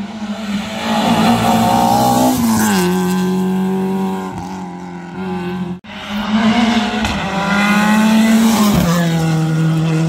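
Rally car engine running hard at high revs, a steady note that drops in pitch once about two and a half seconds in. The sound cuts out suddenly about six seconds in, then returns with the same pattern, its pitch dropping again near the end.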